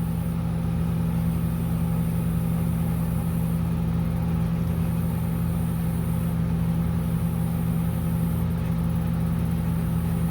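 A steady low mechanical hum that holds an even pitch and level throughout, with no starts, stops or rises.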